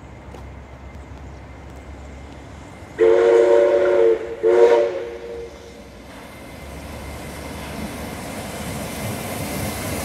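Steam locomotive 5917's whistle sounds a long blast followed by a short one, a loud chord of several tones, as the engine approaches. Afterwards the rumble of the oncoming train grows steadily louder.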